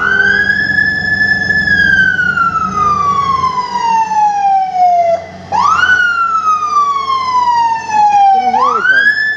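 Ambulance electronic siren in wail mode. The pitch sweeps up quickly, then falls slowly over about four to five seconds, climbing again about five and a half seconds in and once more near the end.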